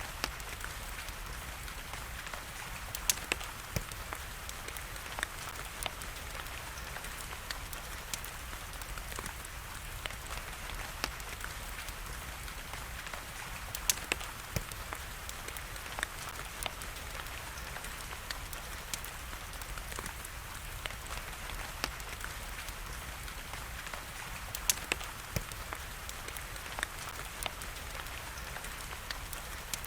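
Steady rain hiss with a crackling fireplace fire: irregular sharp pops and snaps scattered over the rain, a few louder ones standing out.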